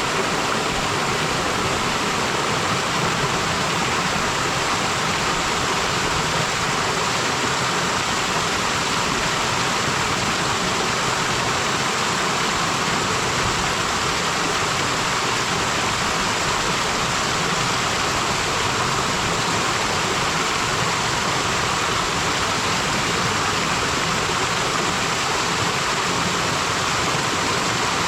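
Waterfall and mountain stream: water falling and splashing in a steady, even rush.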